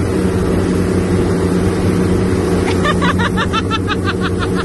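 Towing motorboat's engine running steadily at speed, a low drone over the rush of water churned by the wake. About three seconds in, a person's rapid laughter joins.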